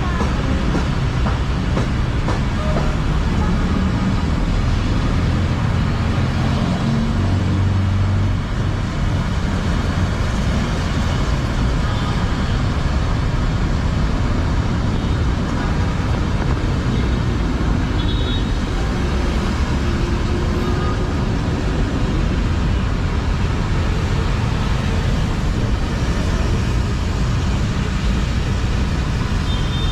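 Steady rain and city background noise: a constant rushing hiss over a low rumble.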